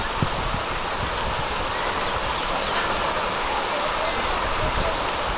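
Pond fountain jet spraying water that falls back onto the pond surface: a steady hiss and splash of falling water.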